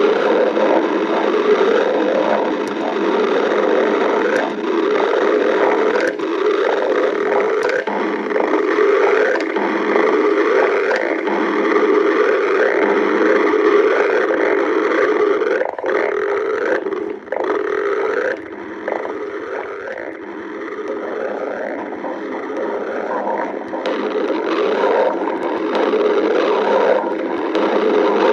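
Stomach growling, as of an empty, hungry stomach: a loud, continuous gurgling rumble made of many short rising and falling gurgles, easing off briefly a little past halfway.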